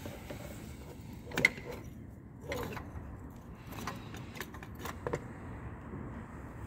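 Hands working among wiring and plastic parts in a van's engine bay: a handful of sharp clicks and knocks, the loudest about a second and a half in, over steady low background noise.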